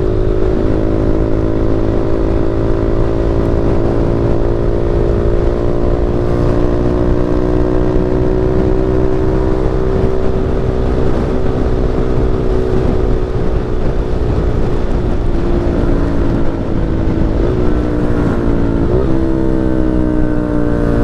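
160 cc single-cylinder motorcycle engine running at a steady cruising speed under a heavy rush of wind noise. Near the end the engine note drops and then climbs again.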